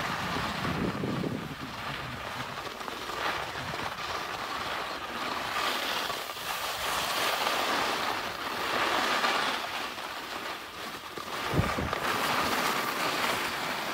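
Wind buffeting the phone's microphone: a steady rushing noise that swells and eases, with a brief low thump of a gust near the end.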